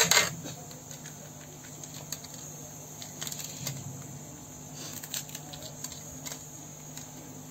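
A knife clicks sharply against a plate at the start. Then come faint, scattered crackles and ticks as fingers pull the seeds and pith out of a slit green chilli and drop them onto the plate.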